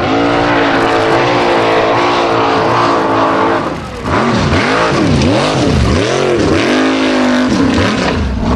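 Formula Offroad buggy's engine at full throttle, holding high revs for about three and a half seconds. After a brief dip the revs swing rapidly up and down in quick swoops, then hold high again near the end.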